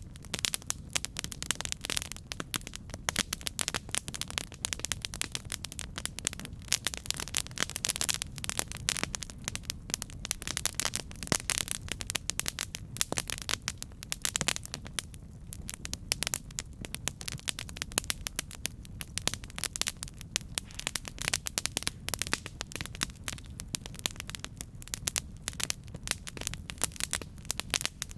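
Campfire burning, crackling continuously with many small sharp pops over a low steady rumble.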